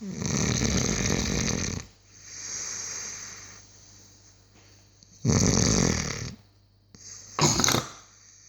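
Six-month-old Cane Corso puppy snoring in its sleep: two loud, fluttering snores about five seconds apart, each followed by a softer, breathy exhale, and a brief sharp breath near the end.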